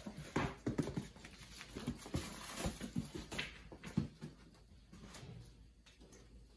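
Rhodesian Ridgeback puppies scampering and tussling on a hard floor: paws and claws pattering, with irregular soft thumps. The bustle is busiest in the first four seconds and quieter after.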